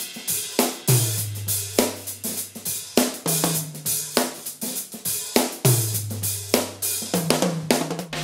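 Groove Drum Co. pancake drum kit played in a steady groove with Paiste cymbals and hi-hat, heard through the overhead microphones alone: the cymbals bright and upfront, the shallow drums thinner behind them. A low drum note rings on twice, about a second in and near six seconds.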